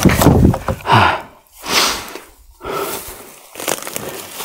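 A man breathing hard in a few heavy gasps and exhalations, out of breath from the effort of lowering a heavy wooden boat by hand.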